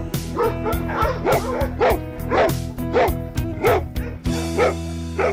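Dogs barking repeatedly over background music with a steady beat.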